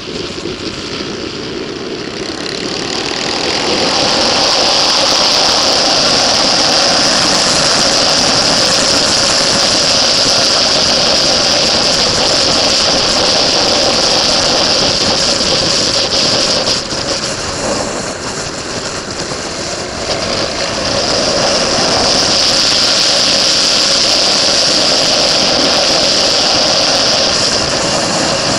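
Motorcycle at speed on a race track, heard from a camera mounted on the bike: the engine runs under load beneath a heavy rush of wind. The noise builds over the first few seconds, drops back for a few seconds about two-thirds of the way through, then builds again.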